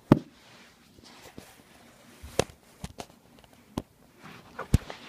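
Handling noise from a phone moved and bumped at floor level: about half a dozen sharp, irregular knocks with faint rustling between them, the loudest right at the start.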